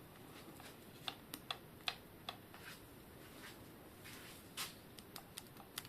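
Irregular light clicks and taps, about a dozen, from small bicycle headset parts and tools being handled during servicing, with a slightly longer scrape-like click a little past the middle.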